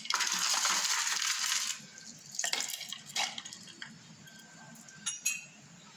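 Ice cubes poured into a jar of cold milk: a clattering rush lasting under two seconds, then a few separate clinks.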